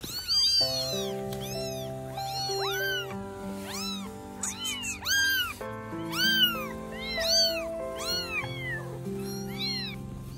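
Baby kittens meowing over and over, high-pitched cries that each rise and then fall in pitch, several a second at times, with background music of sustained chords underneath.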